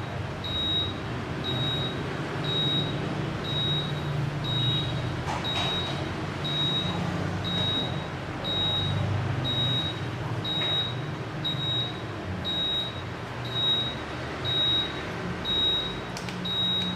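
Singer ESP2 steam press beeping steadily while it heats up after being switched on: a short high beep about once a second, over a low hum.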